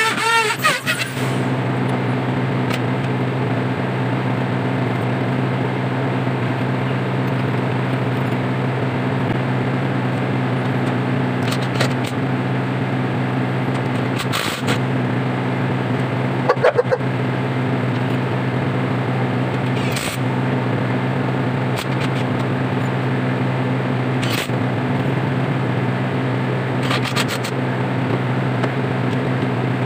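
A steady low machine hum, like a running engine, holds unchanged throughout. A power drill whirs briefly at the very start, and a few short knocks and clicks come later on.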